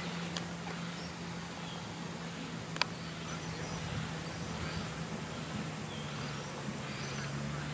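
Steady high-pitched drone of insects over a pond, with a low steady hum underneath and a single sharp click about three seconds in.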